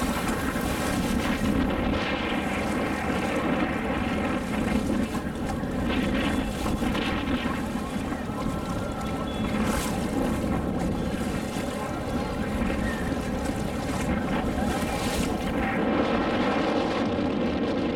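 Small motor launch under way: its engine runs at a steady drone, with water rushing past and wind buffeting the microphone.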